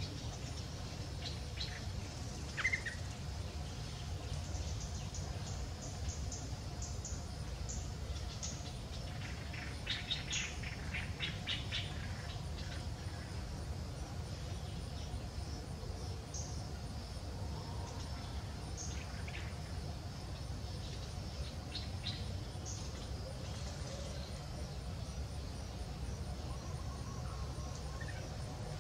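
Outdoor ambience: a steady low rumble with scattered short, high bird chirps, a sharper chirp about three seconds in and a quick run of chirps about ten seconds in.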